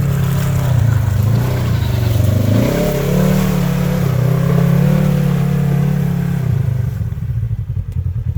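Side-by-side UTV engine revving under load, its pitch rising and falling. Near the end it drops back to a lower, pulsing run.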